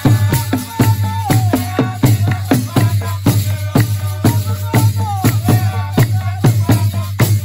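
Rwandan traditional dance music: fast, steady drumming at about four beats a second with a shaker, and a voice singing a melody over a steady low drone.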